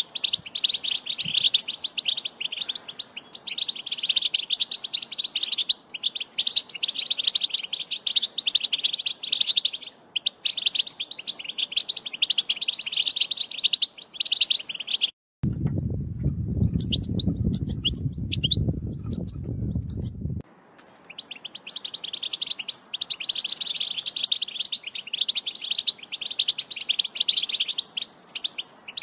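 European goldfinch song: a fast, continuous twittering of rapid chirps. About halfway through, the twittering breaks off for some five seconds of low rumble with only a few scattered chirps, then resumes.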